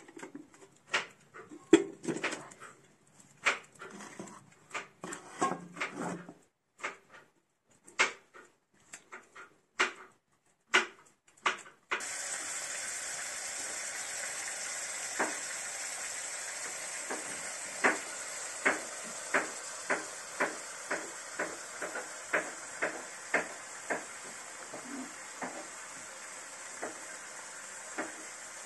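Metal kettle and enamel pot clanking as they are handled on a stove top. About twelve seconds in this changes to a steady sizzle of onions frying in a pan, with regular sharp clicks, about two a second, of a knife cutting vegetables by hand over the pan.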